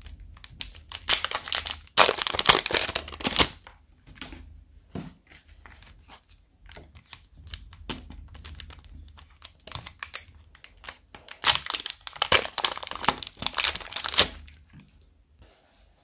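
Thin plastic bags crinkling and being torn open around blocks of modelling clay, in two loud stretches of rustling, about a second in and again near twelve seconds in, with quieter handling crinkles between.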